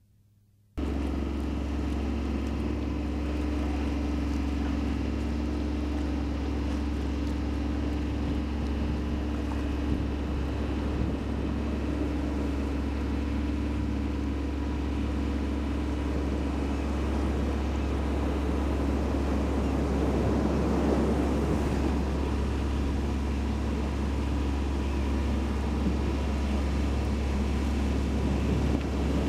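Steady drone of a boat engine with wind and water noise over it, starting about a second in.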